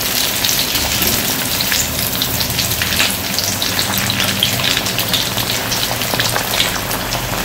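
Bread-crumbed onion cups deep-frying in hot oil on a low flame. The oil keeps up a steady sizzling and bubbling, full of small crackles.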